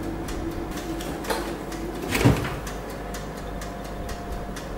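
Fan oven running with a steady hum, with one knock about two seconds in and a fainter click before it.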